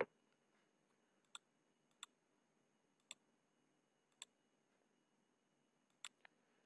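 Six faint, sharp clicks spaced irregularly through near silence, the last two close together near the end: computer mouse clicks.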